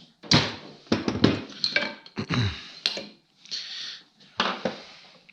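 Metal engine parts and tools being handled on a workbench: a series of sharp clinks and clanks, about one every half second, with a short scrape near the middle.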